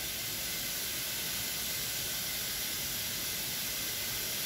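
Steady, even hiss of background noise, with no distinct sound standing out above it.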